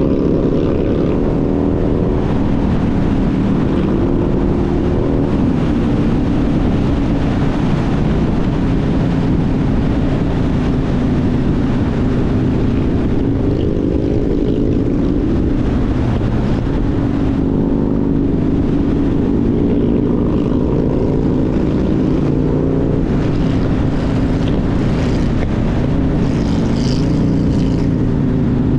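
Motorcycle engine running at road speed, its pitch rising and falling several times with the throttle, over steady wind rush.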